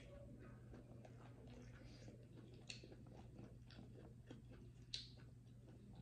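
Faint close-up chewing of noodles, with scattered small wet mouth ticks and two sharper clicks, one near the middle and one about five seconds in. A low steady hum runs underneath.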